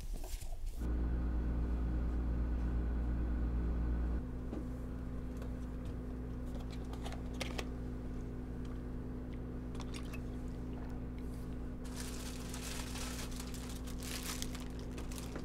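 Open refrigerator humming steadily, with rustling, crinkling and small clicks as packages and jars are handled inside it, the rustling heaviest near the end.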